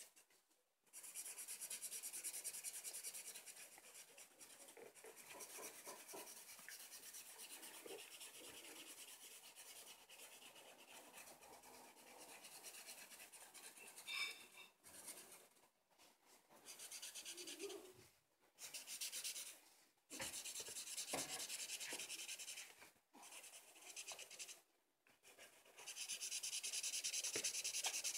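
Felt-tip marker rubbing back and forth on paper while colouring in: faint scratchy strokes in runs of a few seconds, broken by short pauses.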